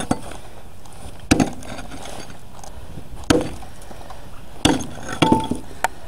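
Ice in a frozen animal water bucket being struck: about six sharp, irregularly spaced clinks and knocks. The ice is frozen solid.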